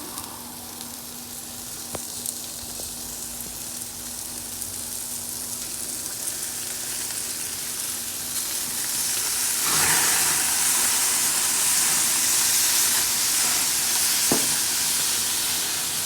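Food sizzling and frying in a hot pan, the sizzle swelling louder about ten seconds in, with a light knock a few seconds before the end.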